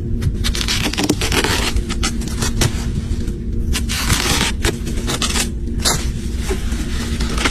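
Repeated irregular scraping and rustling noises over a steady low hum.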